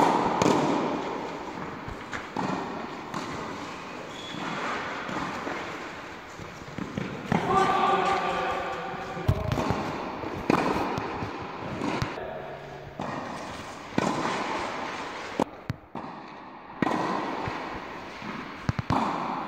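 Tennis balls struck by rackets in a fast volley rally, sharp pops every second or two that echo around a large indoor tennis hall, with a ball bouncing on the court now and then.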